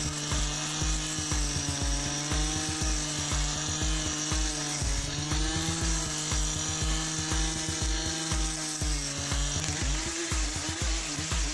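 Stihl FS350 brush cutter's two-stroke engine running at high revs while its brush knife chops through dry blackberry canes and matted grass, the engine note wavering slightly as the blade takes the load. Background music with a steady beat plays alongside.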